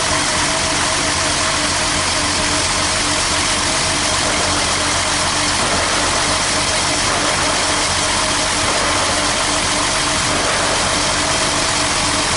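1967 Mercedes-Benz 250S straight-six engine idling steadily, a constant hum over hiss. The engine is still running well below operating temperature because of an altered thermostat, so it is making condensate.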